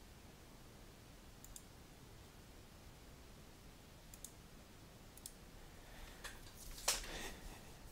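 Faint computer mouse clicks, a few single clicks spaced a second or more apart, then a denser run of louder clicks and taps near the end.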